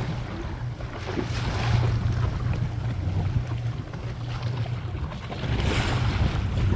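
Boat engine running steadily under wind and rushing water, the hiss swelling twice, about a second and a half in and again near the end.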